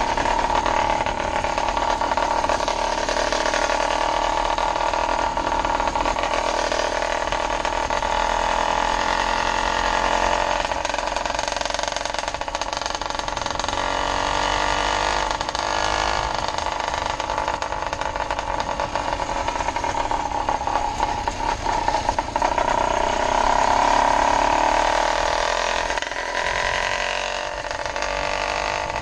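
GT-90 case-reed-induction two-stroke motorized bicycle engine with an MZ65 expansion-chamber pipe, running hard at riding speed with a high, steady buzz. Its revs ease off and pick up again near the end.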